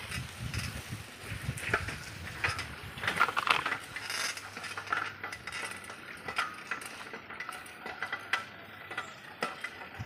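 Bicycle ridden over a rough off-road track, rattling with many irregular clicks and knocks.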